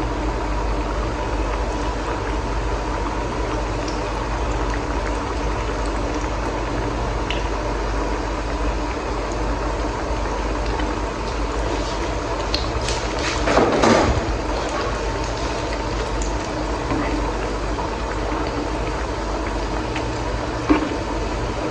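Mandazi dough pieces deep-frying in hot oil: a steady sizzle, with a louder surge of bubbling a little past halfway and a sharp click near the end.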